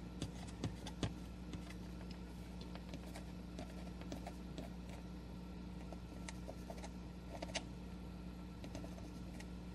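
Fountain pen nib drawing a heavy, wet line on paper: faint scattered ticks and scratches, a few sharper clicks about the first second, over a steady low electrical hum.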